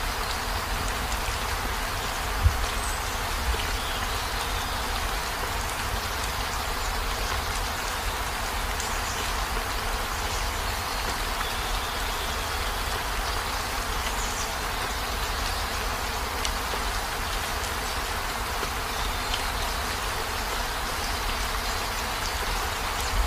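Steady rain falling on a campervan's roof and windows, with a low rumble underneath. A single sharp knock stands out about two and a half seconds in.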